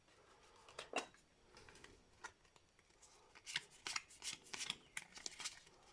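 Pokémon card booster pack being opened and its cards handled: faint short rustles and crinkles of the foil wrapper and cards, a few early on and a busier run in the second half.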